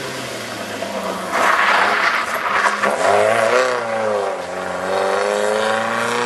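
Polski Fiat rally car at full throttle, passing close on a loose gravel road with the rasp of its tyres and gravel spray. About three seconds in, the engine note drops and then climbs again as it pulls away.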